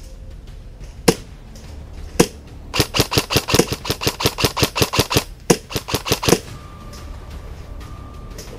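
Airsoft guns shooting: two single shots about a second apart, then a fast string of shots lasting a couple of seconds, and after a brief pause a shorter string.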